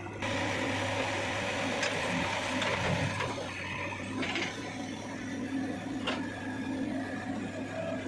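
JCB 3DX backhoe loader's diesel engine running steadily as the backhoe works, with three short metallic clanks from the bucket and arm.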